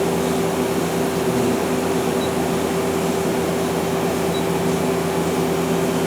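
Okuma LB200MW CNC turning center running with a steady hum from its motors and pumps while a slide is jogged in under manual control; the spindle is not turning.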